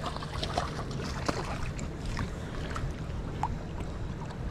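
Steady low hum of an idling boat engine. Scattered light clicks and small splashes come from a hooked ray at the surface beside the hull.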